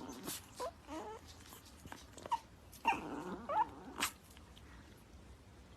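A dog whining in a series of short, high whimpers with a few sharp clicks among them. The whimpers stop about four seconds in.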